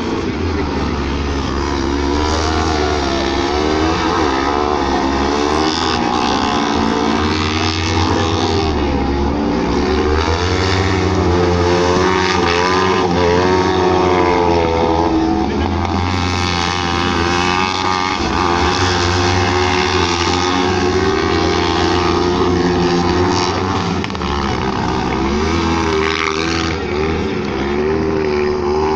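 Racing buggy engines on a dirt autocross track, running hard with the pitch rising and falling as the drivers work the throttle through the corners. The engine sound swells toward the middle and eases for a moment about three-quarters of the way through.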